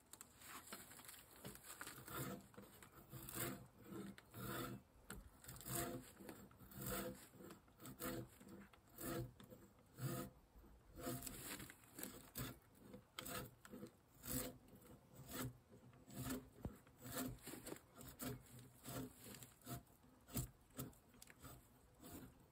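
Faint repeated scraping strokes of a hand tool working wood, uneven in spacing, about one or two a second.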